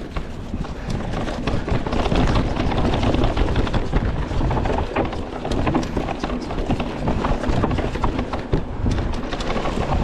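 Mountain bike rattling down a rough dirt trail: a low tyre rumble under a dense, continuous clatter of knocks as the bike hits roots and bumps.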